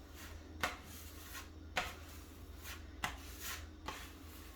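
Spackle knife scraping filler across a wall in short strokes, with a few sharp taps of the blade.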